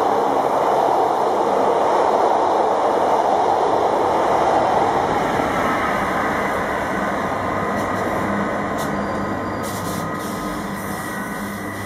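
Double-deck electric commuter train rolling past at speed, a loud steady rush of wheels on rail. From about six seconds in it thins into the steady hum of an SNCF BB 27300 electric locomotive running into the station, with a faint high whine over it.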